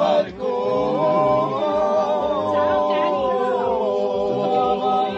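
A group of men singing a cappella with no words, long held notes in harmony that shift pitch about twice.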